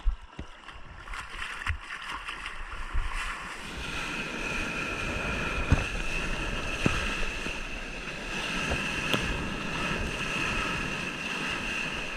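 Seawater sloshing and splashing against a camera at the surface as a small wave breaks around it, with sharp knocks of water on the housing. From about four seconds in it becomes a louder, steady rush of whitewater with a steady high tone over it.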